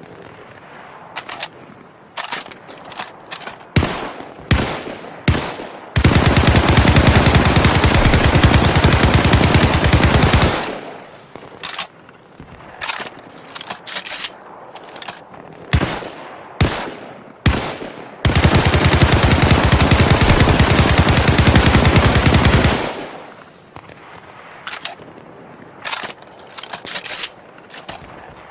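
Thompson submachine gun firing: scattered single shots and short bursts, then a long full-auto burst of about four seconds, more single shots and short bursts, a second long burst of about four and a half seconds, and a few last shots near the end. Each long burst trails off in echo.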